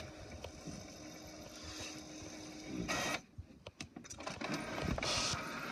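HP Officejet 4630 inkjet printer running a copy job: a steady mechanical whir with a hum, a short louder rush about three seconds in, then a few clicks and more mechanism noise near the end.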